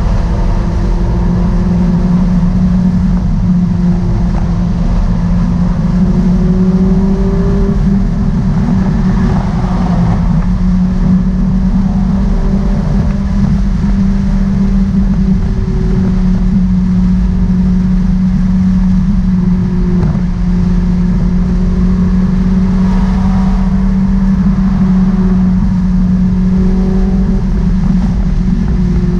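Ferrari 458 Italia's V8 engine holding a steady drone at constant cruising speed, heard from inside the cabin, with road and wind noise beneath it.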